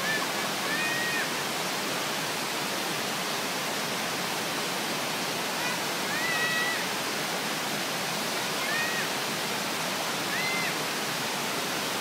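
Tall waterfall pouring down a cliff onto rocks: a steady, even rush of falling water.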